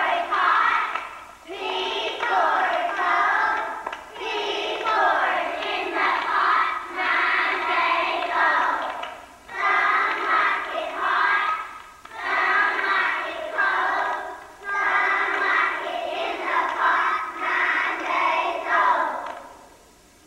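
A chorus of first-grade children singing together in short phrases, stopping near the end.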